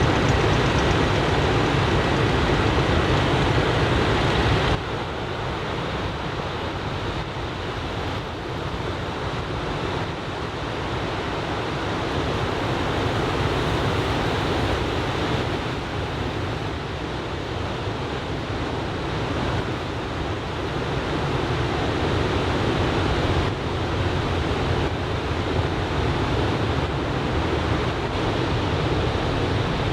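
Ocean surf from a typhoon swell breaking and washing on a sandy beach, a steady rushing wash with wind on the microphone. The level drops abruptly about five seconds in.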